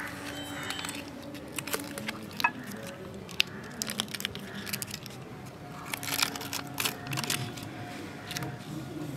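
A pan-fried, charred banana-leaf parcel being peeled open by hand, its crisp leaf crinkling and crackling in scattered sharp snaps, busiest near the end.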